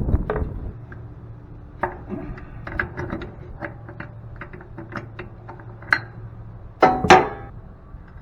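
Metal parts and hand tools clinking and knocking during the dismantling of a piece of scrap machinery: scattered light taps and clicks, with two loud clanks about seven seconds in, over a steady low hum.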